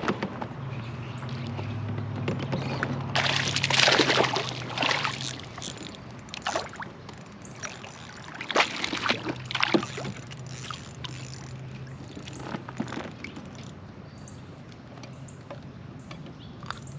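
Water splashing and sloshing in several bursts, loudest about three to five seconds in, as a hooked small largemouth bass is fought in on ultralight tackle. A low steady hum runs through the first five seconds and again in the middle.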